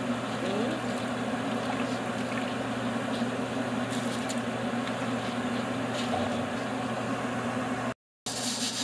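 Pot of seasoned bean water at a rolling boil, bubbling steadily over a low steady hum, as rice is poured in. The sound cuts out briefly near the end.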